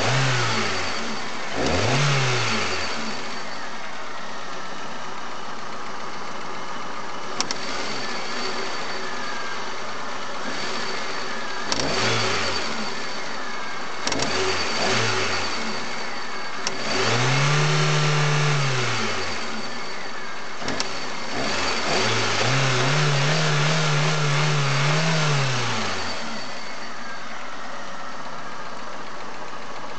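Chery Amulet car engine idling and being revved in repeated throttle blips, two of them held for a few seconds before dropping back to idle, with a few sharp single knocks along the way. The owner reports that the engine knocks when the revs rise sharply and vibrates too much at idle, and asks what the cause is.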